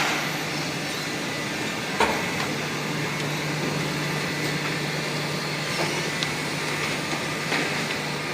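Automatic shrink-wrap packaging machine running: a steady mechanical hum with a constant low drone, broken by a sharp clack about two seconds in and a few fainter clicks later.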